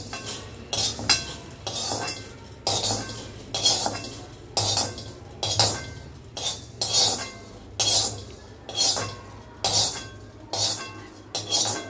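A steel ladle scraping roasted coriander seeds out of a metal kadai and tipping them onto a steel plate, with the seeds rattling onto the steel. The scrapes and clinks repeat about twice a second.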